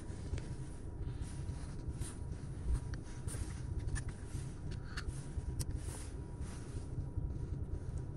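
Low steady rumble and a faint steady hum inside a car's cabin, with a few light clicks.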